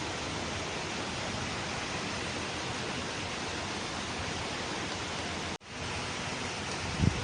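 Steady, even hiss with no pitch or rhythm, cut off for a split second about five and a half seconds in, then a low thump near the end.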